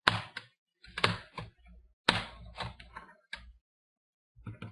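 Plastic screen bezel of an HP Pavilion G72 laptop snapping as it is pried loose by hand: a series of sharp snaps, the loudest three about a second apart, then a few softer ones. The snapping is the bezel's clips letting go, a good sign that the frame is coming off.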